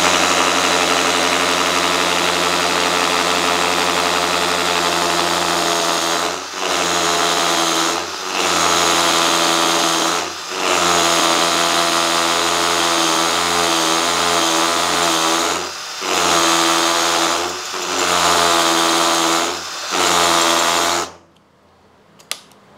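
Mollar MLR-CID20500-U cordless hammer drill in hammer mode, boring an 8 mm masonry bit into concrete block. It runs steadily, eases off briefly several times and stops near the end. The drill is in its low-speed setting, which makes the hole slow to cut.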